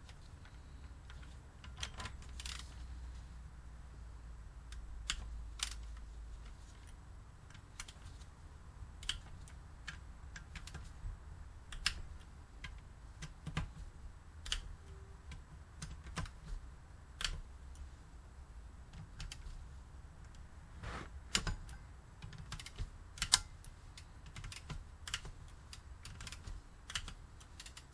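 A ratchet on a long extension with a 10 mm socket, clicking and clinking irregularly as it undoes the bolts on a Renault Clio F7P 16-valve cylinder head; the bolts come undone easily. The clicks are sharp and scattered, with a busier run of louder ones about three quarters of the way through.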